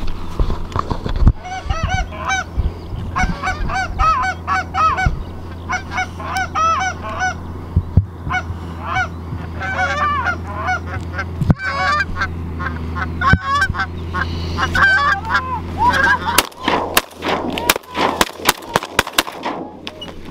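A flock of Canada geese honking, many calls overlapping, over a low steady hum. Sharp knocks are scattered through it, and a quick run of clicks comes near the end.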